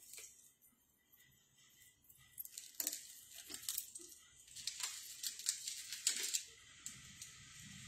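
Light metal clinks and jingles of imitation jewellery pieces being handled, a cluster of quick clicks starting about two seconds in. A faint steady hiss comes up near the end.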